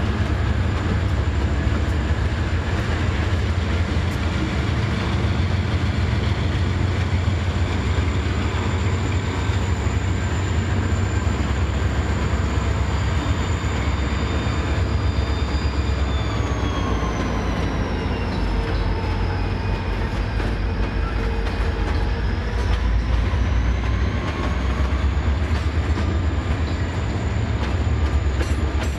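Diesel freight locomotives rumbling slowly past at close range, with freight cars beginning to roll by near the end. A thin, high, steady whine runs over the rumble; it slides down in pitch about halfway through and climbs back up near the end.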